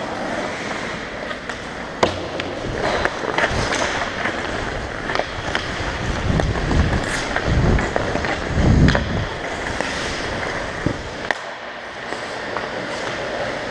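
Ice skate blades scraping and carving on the ice, picked up close on a helmet-mounted camera mic, with a few sharp stick-and-puck clacks. Heavy low rumbling surges through the middle.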